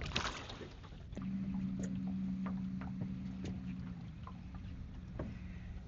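A small boat motor humming steadily, starting about a second in, with a few light clicks over it.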